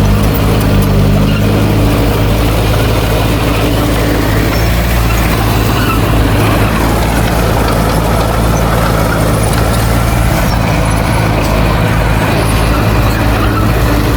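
Heavy diesel engine of earthmoving equipment running steadily at a low, even pitch.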